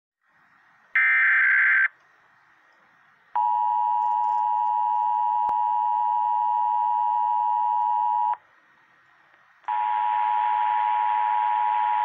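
Emergency Alert System required monthly test coming through a small speaker. About a second in there is a one-second raspy burst of digital header data. Then the two-tone attention signal sounds steadily for about five seconds, and after a short pause the two-tone signal starts again over a hiss.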